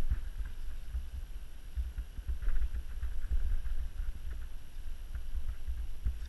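Wind buffeting the camera microphone: a low, gusty rumble that rises and falls, with a few faint rustles.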